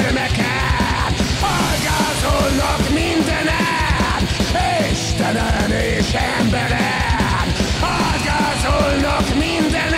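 Loud heavy punk-metal music: distorted guitars and bending lead lines over a fast, driving drum beat.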